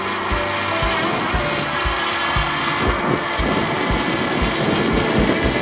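Background music with a steady thumping beat.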